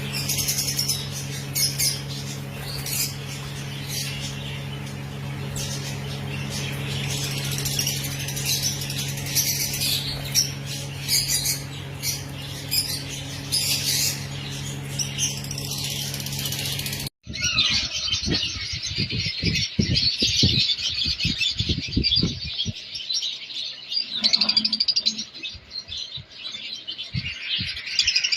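A colony of lovebirds and other small cage birds chattering, chirping and squawking continuously, with many calls overlapping. A steady low hum runs under the first part. After a cut about 17 seconds in, the chatter goes on with scattered low thumps.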